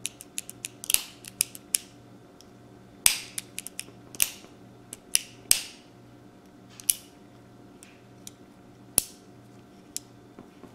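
Ruger PC Carbine trigger group worked by hand: the hammer and trigger cocked and released again and again, giving sharp clicks and snaps in irregular clusters, loudest about three, four and five seconds in, with a lone snap near nine seconds. The hammer is being tried for the feel of its spring, to check that the spring is properly seated.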